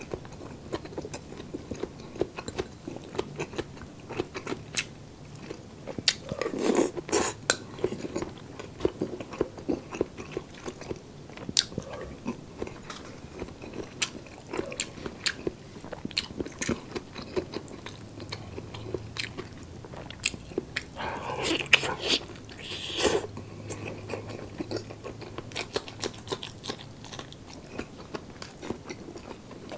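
Close-miked chewing and wet mouth clicks of a person eating roast chicken by hand, with louder stretches of eating about seven and twenty-two seconds in.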